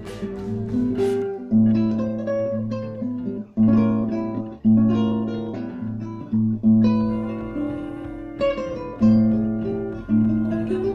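Instrumental music on plucked guitar: notes and chords struck roughly once a second, each ringing and fading, over a low bass line.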